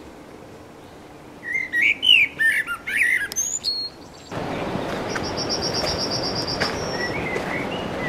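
Male common blackbird singing one phrase of low fluting, warbling notes that ends in a high, squeaky twitter. About four seconds in, a steady rushing noise sets in, with a quick, even high trill from another bird over it.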